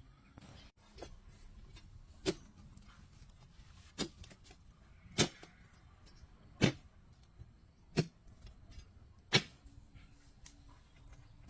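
Six sharp knocks, struck at a steady pace of about one every second and a half.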